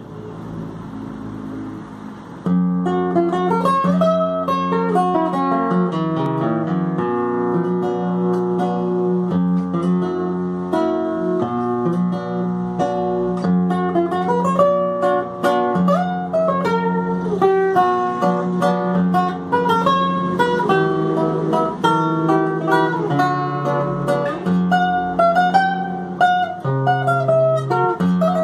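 Solo classical guitar playing a waltz, with a bass line under a plucked melody. It starts softly and gets much louder about two and a half seconds in.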